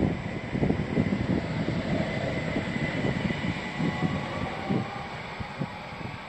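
An ÖBB electric multiple unit runs past and away, its wheels rumbling and knocking irregularly over the track. The sound fades as the train recedes, with a faint steady high whine throughout.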